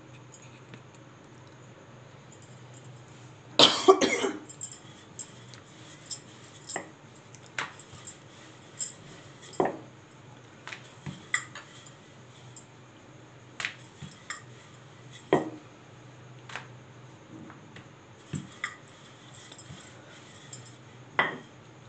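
Wooden rolling pin working paratha dough on a countertop: scattered light knocks and clicks of the pin and hands against the counter over a low steady hum. A loud short burst about four seconds in.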